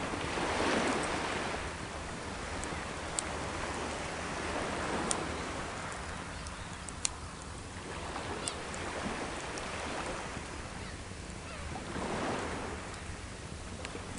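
Sea waves washing onto the shore, swelling and falling back every few seconds, with a few sharp pops from a wood campfire.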